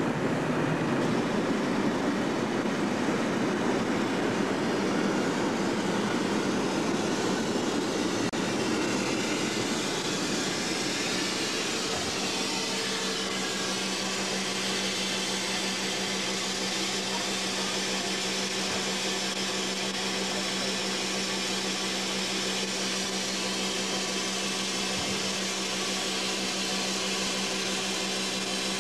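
Standing DR class 01 steam locomotive 01 118 giving off a loud, steady hiss of steam. About twelve seconds in, a steady hum joins the hiss.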